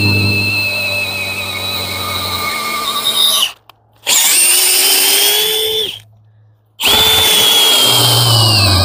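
DeWalt cordless drill boring into wood with an auger bit: the motor whines steadily, stops twice briefly and picks up speed again each time it restarts. Near the end its pitch drops as the bit bites into the wood.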